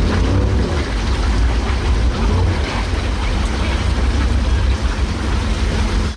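Humvee's diesel V8 running with a steady low rumble, heard inside the cab while the truck sits stuck in deep water that has flooded in.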